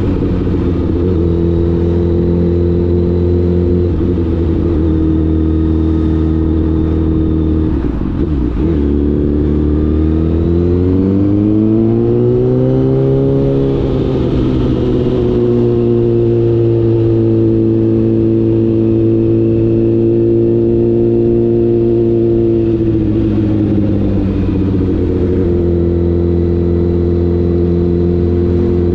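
Honda CBR1000RR's inline-four engine running at steady revs. About eight seconds in it briefly breaks off, then the revs rise over a few seconds and hold even, with a slight dip about three quarters of the way through.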